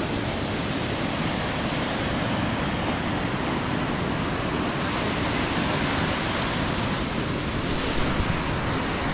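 Waterfall's rushing water, a steady, even roar of falling and flowing water.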